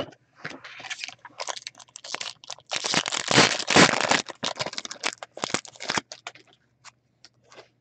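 A foil trading-card pack wrapper crinkling and crackling as it is torn open and the cards inside are handled. The crinkling is densest about three to four seconds in and dies away after about six seconds.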